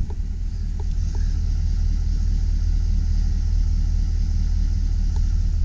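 Chevrolet Silverado 2500 pickup's engine idling, a steady low rumble.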